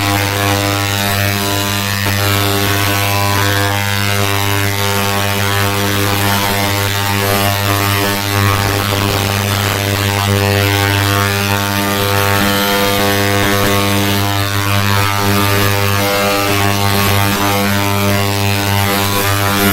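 Ultrasonic cleaning bath of an MST-20 fuel-injector cleaner running: a steady electrical buzz with a strong hum under it and a hiss above, while it cleans a fuel injector submerged in cleaning fluid.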